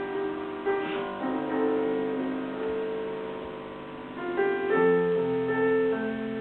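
Solo piano playing slow, sustained chords, with new notes struck about a second in and again near five seconds.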